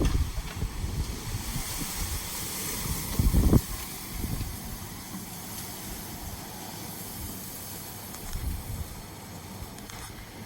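Heavy rain falling with a steady hiss, with gusts of wind buffeting the microphone at the start and again about three and a half seconds in.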